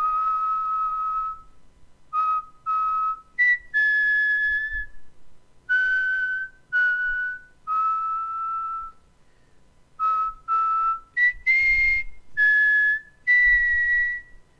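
Whistled tune as background music: a melody of clear, held whistled notes that step up and down in pitch, with a brief pause about nine seconds in.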